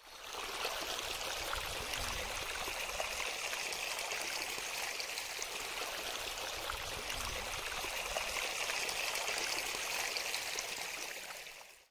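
Shallow stream running and splashing over rocks, a steady rushing trickle that fades in at the start and out near the end.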